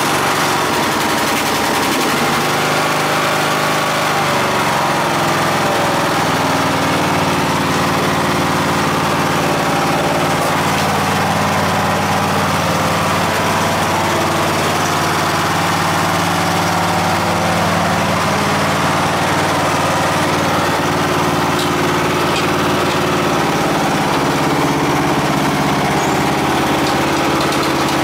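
Craftsman lawn tractor engine running steadily just after being started, on a test run after sitting. Its pitch shifts slightly about three-quarters of the way through.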